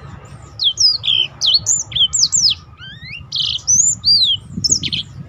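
Black-throated canary singing a fast run of sharp whistled notes that sweep quickly up and down, beginning about half a second in.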